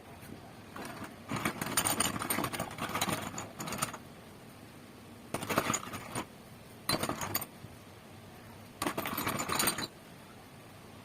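Metal parts rattling and scraping against each other in four bursts of dense clicking, the first and longest lasting about two seconds, with quiet gaps between.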